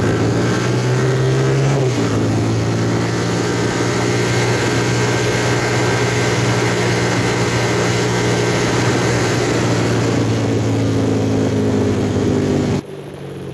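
Road vehicle engine running steadily at speed under a loud rush of wind noise. Its note steps down in pitch about two seconds in, and the whole sound drops away suddenly near the end.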